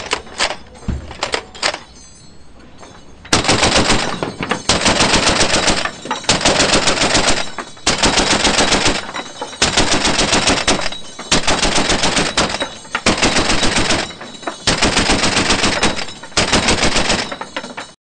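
Boat-mounted belt-fed machine gun firing: a few single shots at first, then, after a short lull, about nine bursts of automatic fire, each about a second long with brief pauses between.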